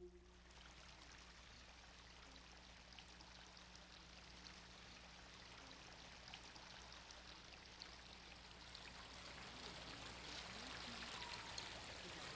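Water running steadily in a garden irrigation ditch, a soft even rush that grows slowly louder.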